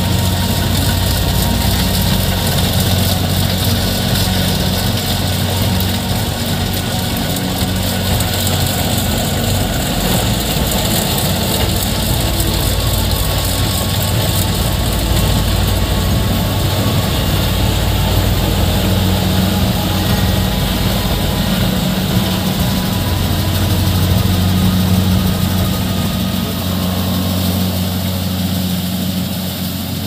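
Kubota DC70 Plus combine harvester's diesel engine running steadily with a deep drone while the machine harvests rice.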